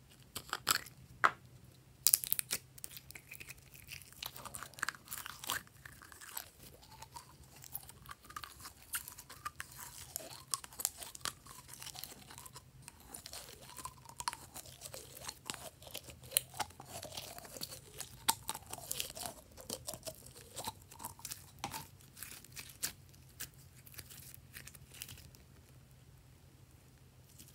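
Blue glitter slime squeezed and stretched by hand, giving a dense run of sticky crackling clicks and squelching squeaks, with a few louder snaps in the first couple of seconds. It thins out near the end.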